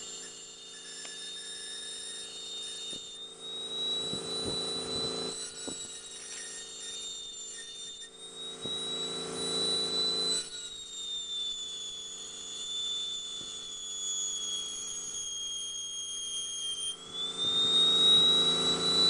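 High-speed glass engraving handpiece running with a steady high-pitched whine that sags slightly in pitch and climbs back near the end, as the bur is drawn along the glass cutting engraved lines. Patches of rougher grinding noise come and go underneath.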